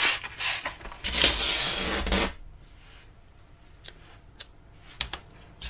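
A strip of fibreglass-reinforced filament tape being pulled off its roll: a harsh ripping noise lasting just over a second, about a second in, followed by a few light taps and clicks as the strip is handled.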